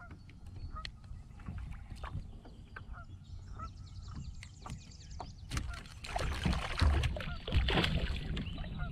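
Water splashing and sloshing beside a kayak as a fish is handled over the landing net, louder in the last few seconds, with knocks of gear against the hull. Geese honk at intervals in the background.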